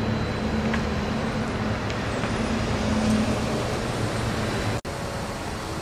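Pickup truck driving past slowly, its engine hum and tyre noise swelling about three seconds in. The sound drops out for an instant near the end and gives way to a steadier, higher hum.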